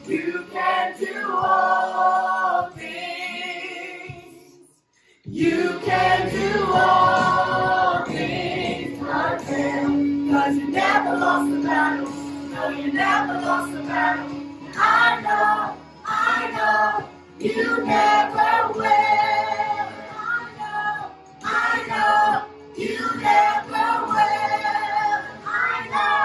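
A family group, men, a woman and children, singing a worship song together. The singing breaks off briefly about five seconds in, then carries on in phrases with a long held note in the middle.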